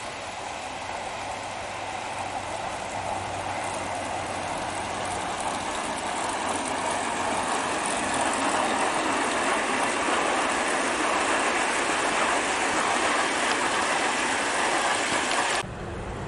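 A 10mm-scale model of a Stanier Coronation Pacific locomotive and its coaches running on garden track, giving a steady rushing running noise. It grows louder as the train comes past close by, then cuts off abruptly near the end.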